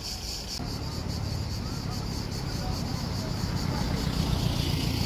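Outdoor ambience: a steady high-pitched insect buzz over a continuous low rumble of wind or traffic, with faint voices in the background.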